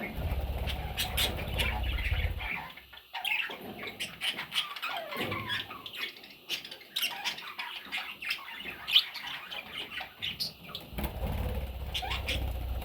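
Budgerigars chirping and squawking in quick, busy bursts, with wings flapping in two spells, one at the start and one near the end.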